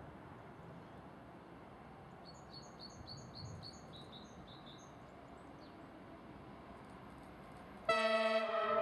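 A bird chirping, a quick run of short falling chirps from about two to five seconds in. Near the end, a yellow track maintenance vehicle sounds its horn: one loud, steady blast that starts suddenly.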